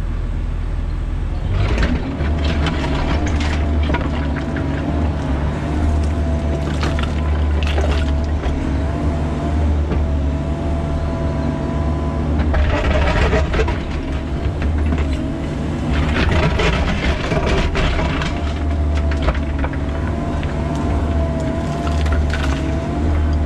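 Bobcat E45 mini excavator's diesel engine running under load with a steady, wavering hydraulic whine, while the bucket scrapes and crunches through rocky ground in repeated bursts every few seconds.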